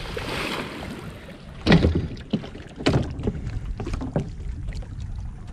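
Water splashing and dripping as a wet magnet-fishing rope is hauled up out of the water hand over hand, with a few sharp splashy strokes about a second apart.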